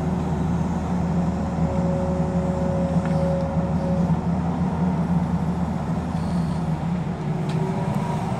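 Tata Hitachi tracked hydraulic excavator working, its diesel engine running steadily under load, with a thin hydraulic whine for a couple of seconds about one and a half seconds in.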